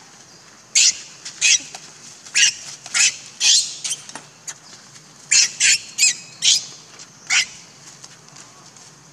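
Infant macaque screaming in short, shrill squeals, about a dozen in two clusters with a brief pause in the middle: distress cries as an adult pins it down and pulls it by a limb.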